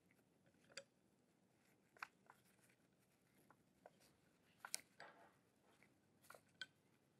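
Faint, scattered clicks and light taps of small metal mount parts, screws and a hex key being handled and fitted, about ten in all; the loudest comes a little under five seconds in.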